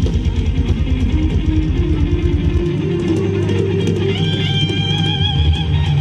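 Live band playing Thai ramwong dance music, with electric guitar and bass over a fast, steady beat. A little under three seconds in the bass pulse thins out, and about four seconds in a held, wavering lead note comes in over it.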